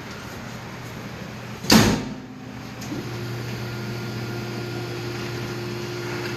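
A loud metal bang about two seconds in, then the compactor baler's hydraulic pump motor starts about a second later and runs with a steady hum as the machine ejects the compressed bale.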